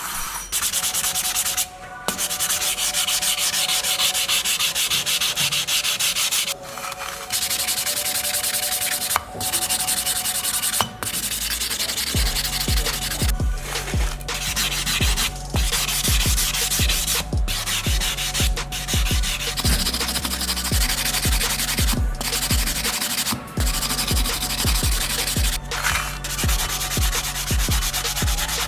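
Sanding: abrasive rubbing steadily over the metal of a diecast model car, pausing briefly every few seconds.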